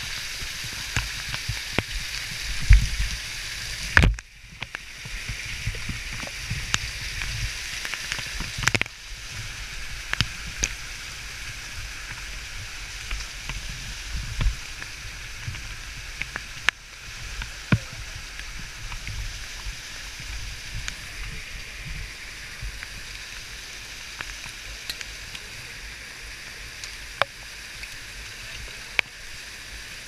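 Waterfall water rushing and splashing over rock, a steady hiss, with scattered sharp taps and knocks close to the microphone and a few low thumps in the first few seconds.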